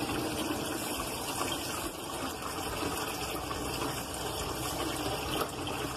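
Cold tap water running steadily into a bowl of strawberries and spilling over its rim into a stainless steel sink.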